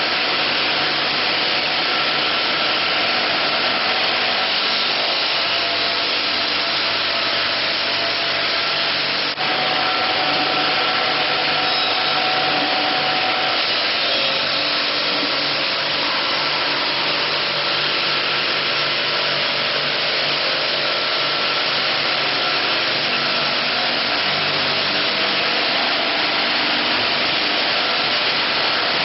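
Vacuum system of an automatic travertine-handling suction lifter running with a steady hiss, with faint machine hums coming and going underneath.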